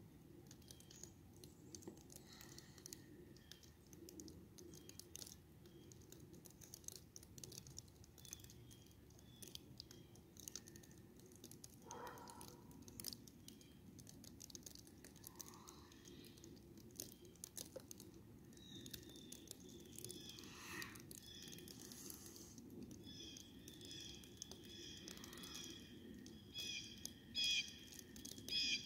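Faint, near-quiet winter ambience with soft scattered ticks and patter. Birds start chirping about two-thirds of the way through, with a few louder calls near the end.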